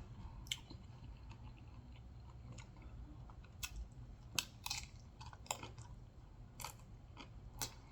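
Person chewing Doritos nacho chips close to the microphone: scattered crisp crunches and mouth clicks, about eight over several seconds, over a faint steady hum.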